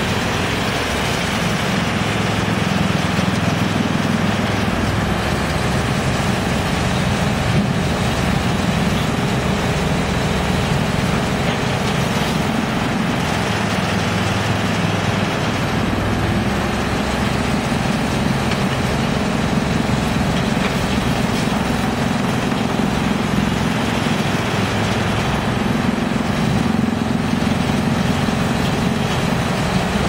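A drum wood chipper and an excavator running together: a steady, loud machinery drone with a low engine hum that shifts in level now and then.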